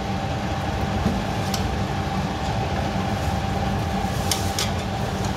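A steady low machine hum with a thin whine running through it, and a few light clicks of a metal spatula against the aluminium pot as the cooked biryani rice is turned over.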